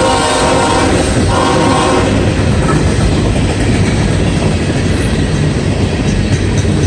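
CSX coal train's locomotive horn sounding a multi-note chord in two short blasts: one already going that ends about a second in, and another that ends about two seconds in. After that, the steady rumble and rail clatter of the hopper cars rolling past.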